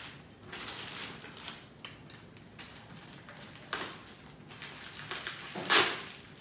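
Scissors snipping and a thin plastic bag crinkling as a small parts packet is cut open, in a string of short rustles; the loudest crunch comes near the end.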